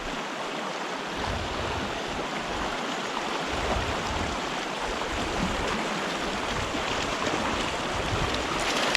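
Fast-flowing stream water rushing steadily, the creek running high with spring runoff.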